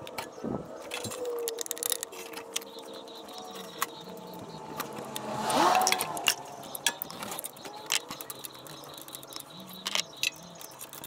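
Metal hand tools clicking and clinking irregularly as the thermostat housing bolts are tightened. About halfway through comes a louder swell of noise whose pitch slides up and down.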